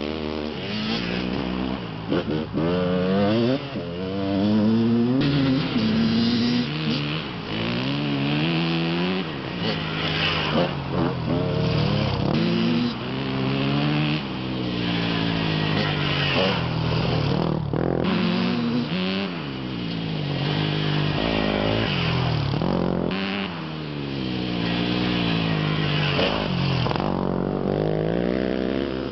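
Dirt bike engine revving up and down as it is ridden, its pitch climbing and dropping again every couple of seconds with the throttle and gear changes.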